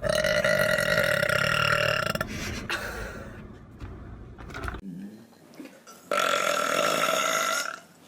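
A person burping: two long, loud belches, the first at the start lasting about two seconds, the second starting about six seconds in.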